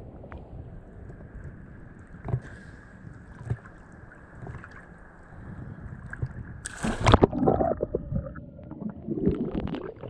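A person jumping from a boat's side into the sea: one loud splash about seven seconds in, followed by churning, bubbling water.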